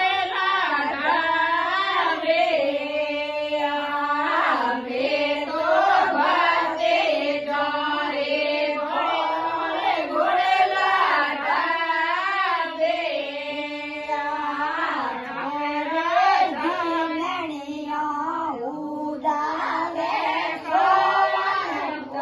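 A woman singing a Marwari devotional harjas song, her pitch bending and sliding through long continuous phrases.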